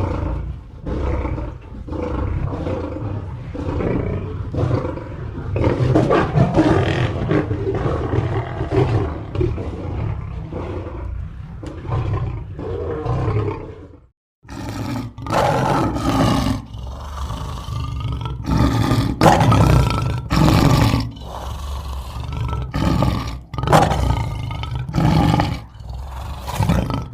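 Lions roaring in a long run of overlapping roars. About fourteen seconds in, the sound cuts out briefly, then a second run of separate, shorter roars follows with a higher pitched edge to them.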